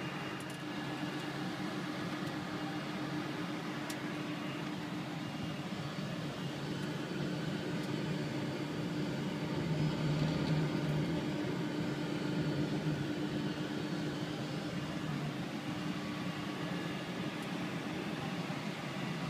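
Steady flight-deck hum inside a Boeing 747-400 taxiing after landing, with its engines at idle, and a constant low tone running through it. It swells slightly about ten seconds in.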